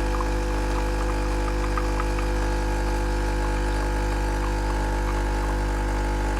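Breville espresso machine's pump running with a steady, even buzzing hum.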